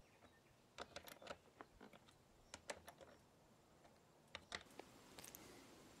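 Near silence with faint, scattered clicks and light taps in three small clusters, as the parts of a washing-machine stator generator and its rectifier are handled and fitted into place.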